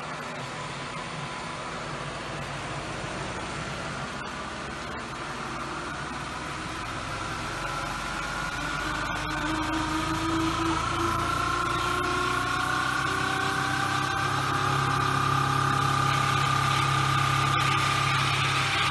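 Vortex turbine rig with a clear acrylic housing spinning, with steady machine noise. Its whine climbs slowly in pitch as the rotor speeds up, then holds steady for the last few seconds.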